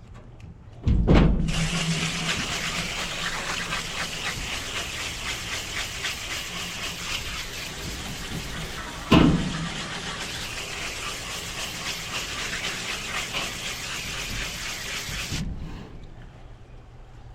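A steady hissing spray that starts with a knock about a second in, has another knock at about nine seconds, and cuts off suddenly near the end.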